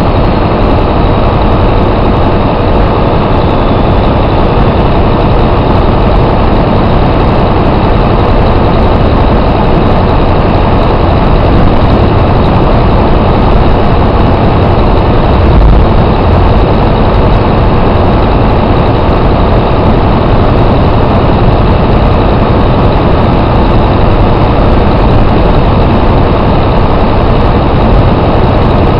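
Detroit Diesel Series 60 12.7-litre inline-six diesel running loud and steady, with no rise or fall in engine speed. There is one brief low thump about halfway through.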